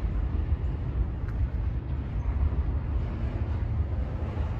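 Double-stack intermodal freight cars rolling over a steel deck bridge: a steady low rumble of wheels on rail.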